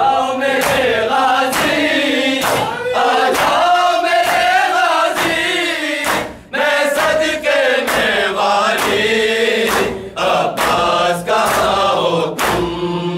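A group of men chanting a Shia noha (mourning lament) in unison. Sharp slaps of hands striking bare chests in matam keep a steady beat through the chant.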